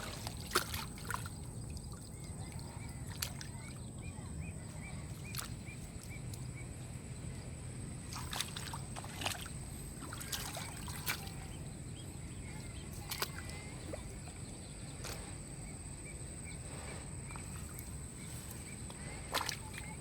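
Water sloshing and scattered sharp knocks and clicks over a steady low rush, with a thin high whine all through.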